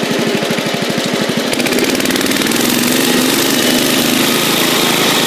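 Bolens garden tractor's engine running as the tractor is driven. A slow, even firing beat changes to a faster, smoother run about a second and a half in.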